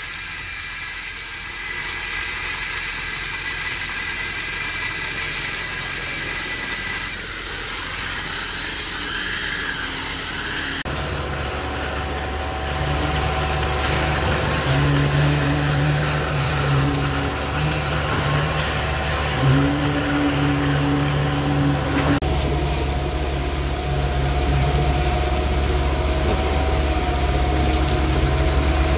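Concrete pump truck engine running steadily while concrete is pumped through the hose.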